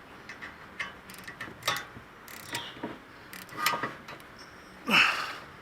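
Hand ratchet clicking in short bursts as the caliper bracket bolts are snugged tight, with a louder clack near the end.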